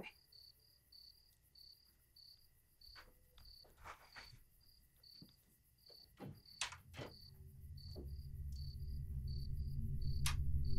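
Crickets chirping steadily, about three chirps a second, with a few soft knocks. A low drone comes in about three-quarters of the way through and grows louder.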